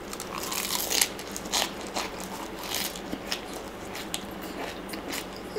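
Biting into and chewing raw leafy greens: a run of crisp crunches, the loudest about a second in, then softer chewing.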